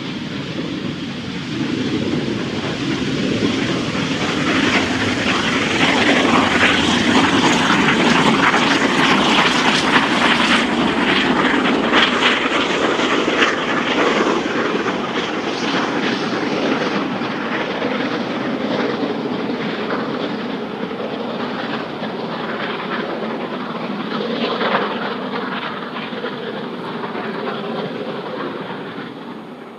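Rebuilt LMS Royal Scot class 4-6-0 steam locomotive 46115 Scots Guardsman hammering uphill, its exhaust beating fast and hard from the chimney under heavy load. The sound builds as the engine comes past and eases off near the end as it pulls away.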